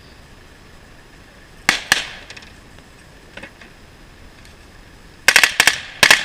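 Rifle shots: two sharp cracks close together under two seconds in, a fainter one in the middle, then a rapid string of shots near the end.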